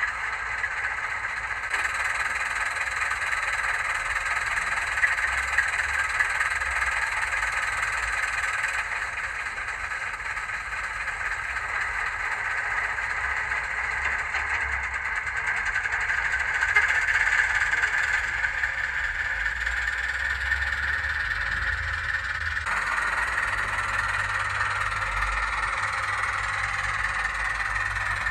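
Sound-fitted OO gauge model of a Ruston & Hornsby 88DS shunter: the Zimo decoder's recorded diesel engine sound playing steadily through the loco's small speaker, its tone shifting abruptly a few times.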